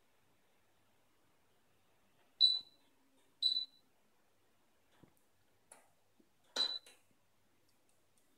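Touch-control panel of a Rainford RBH-815EVW glass-ceramic hob beeping as its keys are pressed, each beep acknowledging a touch. There are three short high beeps, the first two about a second apart and the third a few seconds later, with a few faint clicks in between.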